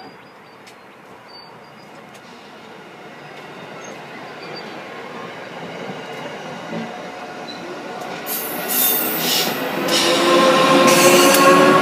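Amtrak Keystone passenger train of Amfleet coaches passing close by: steel wheels rolling on the rail, growing steadily louder as the electric locomotive draws near. Clicks from the wheels come in about two-thirds of the way through, and steady whining tones join in the last couple of seconds.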